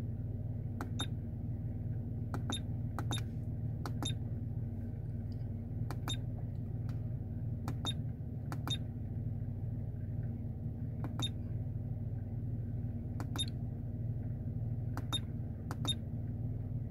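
Rear-view-mirror dashcam's buttons being pressed, each press giving a short high beep; the beeps come every second or two, often in quick pairs, as its settings menu is stepped through.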